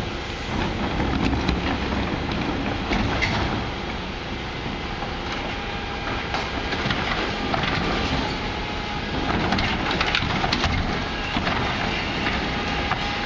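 Rear-loader garbage truck (MAN TGS 26.320 with Faun Variopress body) at work: its diesel engine runs while a large wheeled bin is rolled up and tipped by the hydraulic lifter. From about five seconds in come repeated clanks and knocks of the bin and lift and the rattle of rubbish falling into the hopper.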